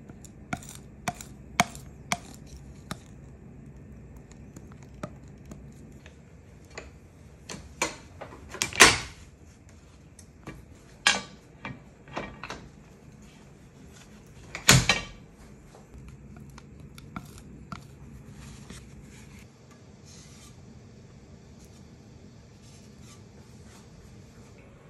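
A metal ink knife scraping and tapping as it works letterpress ink on a glass slab and on a platen press's ink disc: scattered clicks and scrapes, with two louder knocks about nine and fifteen seconds in.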